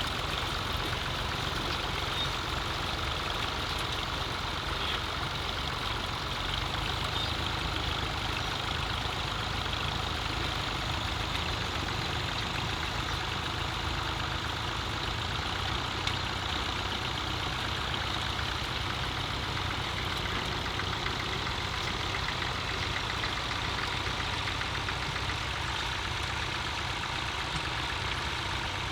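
A steady mechanical hum of an engine or motor running at an even speed, with no change in pitch.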